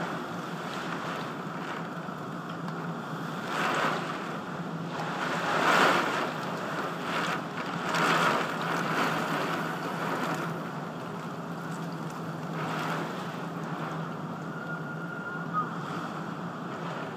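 Thunderstorm wind and rain noise, gusting across the microphone in several louder swells over a steady wash.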